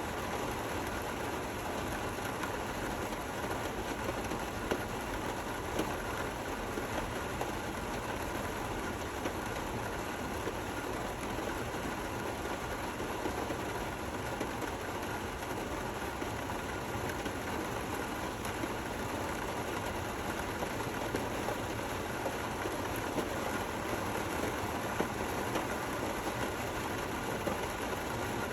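Steady gentle rain, with a few scattered louder drops ticking through it.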